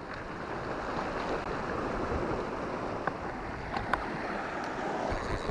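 Sea surf washing over a rocky shoreline: a steady rush, with a few faint clicks about three and four seconds in.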